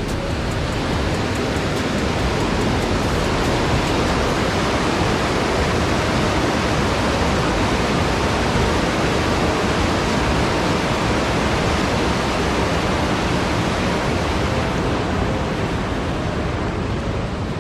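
Steady rush of water pouring over a dam spillway, a little louder in the middle and easing off near the end.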